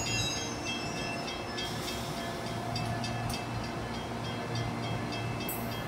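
Amtrak passenger train creeping slowly alongside the platform: a steady low hum and rumble, with faint regular ticks from about a second and a half in.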